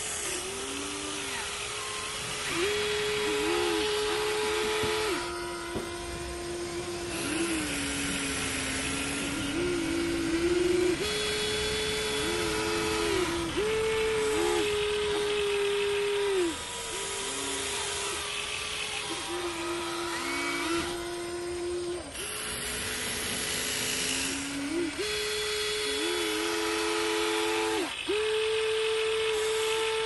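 Huina 1594 RC excavator's electric motors whining as the boom, arm and bucket move in turn. The whine holds steady for a second or few, then drops or jumps to another pitch as a different function starts or stops, over a gritty gear noise.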